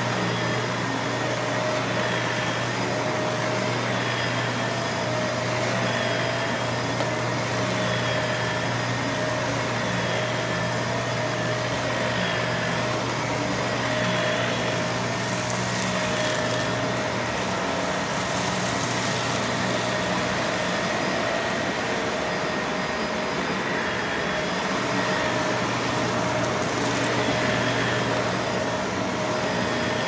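Shark Rotator upright vacuum cleaner running on carpet: a steady motor whine and airflow hiss whose pitch wavers slightly every couple of seconds as the cleaner is pushed back and forth. A stronger hiss rises for a few seconds around halfway.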